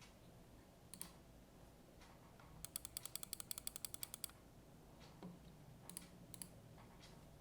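Mechanical keyboard with Cherry MX Brown Hyperglide switches under GMK keycaps on a polypropylene plate, typed on: a single keystroke, then a quick run of about a dozen and a half keypresses over a second and a half, then a few more scattered keystrokes.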